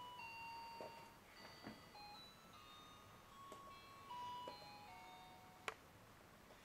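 Faint electronic tune: a simple melody of plain, beep-like notes stepping up and down in pitch, with a single sharp click about five and a half seconds in.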